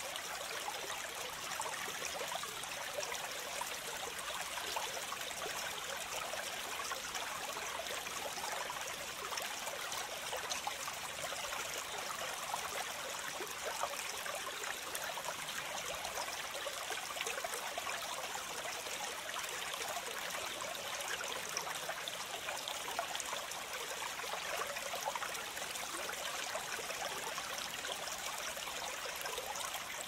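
Running water of a stream, a steady even rush with fine trickling.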